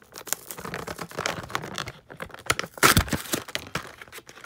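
Crinkling, crackling and tearing of a die-cast toy car's blister pack, a clear plastic bubble on a cardboard card, being pulled open by hand, with the loudest crackle about three seconds in.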